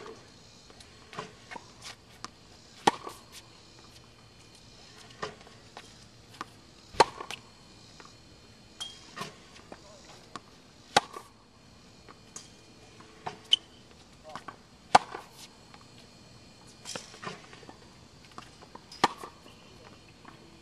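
Tennis racket striking balls fed by a ball machine in forehand practice: a sharp hit about every four seconds, with fainter knocks between the hits.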